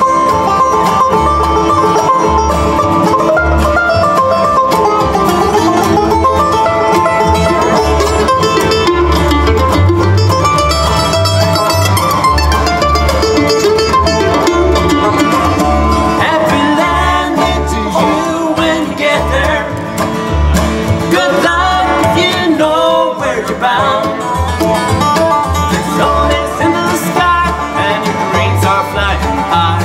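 Bluegrass band playing an instrumental break on banjo, mandolin, acoustic guitar and upright bass, the bass plucking a steady beat. The lead passes from the banjo to the mandolin partway through.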